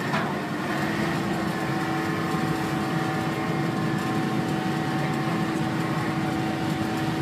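Engine running at a constant speed: a steady drone with a few unchanging hum tones.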